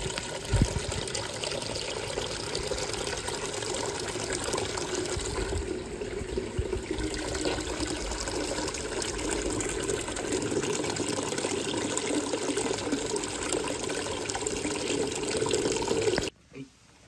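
Water gushing from a wall-mounted tap and splashing into a plastic tub as it fills, a steady rush. There is a brief knock about half a second in, and the sound cuts off suddenly near the end.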